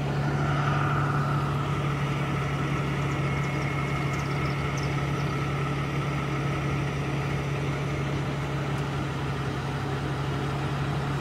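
A vehicle engine idling: a steady low hum with a fainter, higher steady whine over it.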